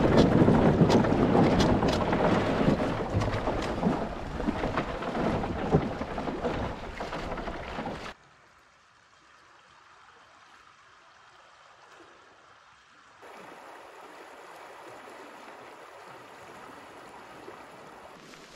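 Wind noise on the microphone with scattered knocks and splashy water from a canoe at the riverbank, fading over about eight seconds. Then it cuts abruptly to a faint, steady babble of a shallow river flowing over stones, which grows a little louder about thirteen seconds in.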